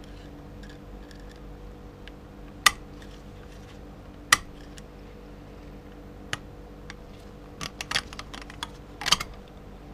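Small metal clicks and taps as a pick pries the selective snap ring out of a Ford AOD transmission's forward clutch drum: a sharp click a little under 3 seconds in, another just past 4 seconds, then a quick run of small clicks near the end, over a steady low hum.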